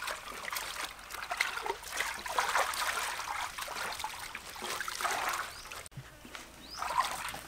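Water splashing and trickling as bunches of leafy greens are swished and lifted in a metal basin of water, in uneven little splashes. It dips briefly about six seconds in.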